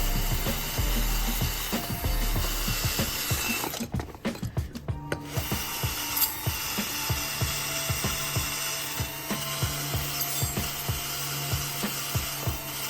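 Ratchet wrench clicking in quick, fairly regular strokes while bolts are turned during brake pad and disc replacement, over a steady low hum.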